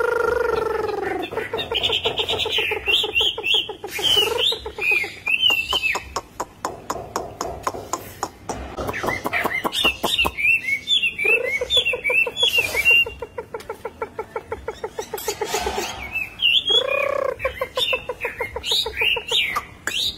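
Chinese hwamei singing: several fast runs of rapidly repeated low notes mixed with high, quickly warbled whistled phrases.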